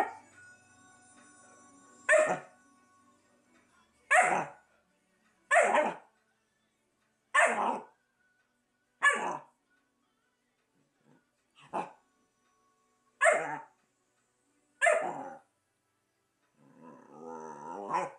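Berger Picard puppy barking in single barks, about eight of them spaced a second and a half to two seconds apart, ending in a longer, rougher vocalisation near the end.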